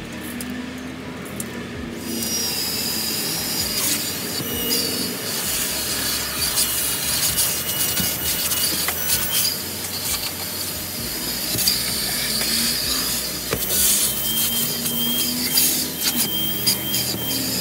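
Vacuum cleaner starting about two seconds in and running, a steady rushing noise with a high motor whine that wavers as the nozzle is worked, and rubbing and scraping of the nozzle over upholstery and carpet.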